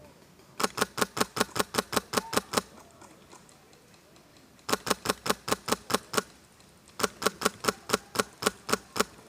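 Airsoft rifle firing three strings of rapid, evenly spaced shots, about six a second, each a sharp loud crack.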